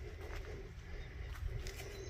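Footsteps on a hiking trail, a scatter of short crisp steps over a steady low rumble.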